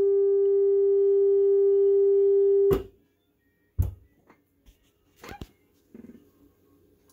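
Realistic STA-52B stereo receiver playing a steady test tone from an FM signal generator through its speakers. The tone cuts off with a click about three seconds in as the selector knob is turned, followed by a few faint clicks from the knob.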